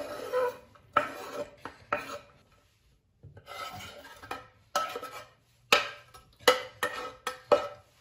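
Kitchen knife scraping chopped onion off a wooden cutting board into a metal bowl: a series of short rasping scrape strokes, with a pause of about a second midway and sharper, quicker strokes near the end.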